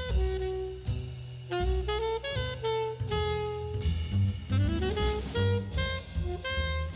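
Background jazz music: a saxophone playing a melody over bass and drums.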